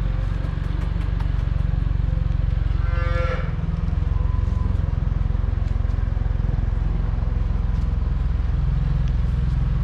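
A cow calls once, a short moo about three seconds in, over a steady low rumble.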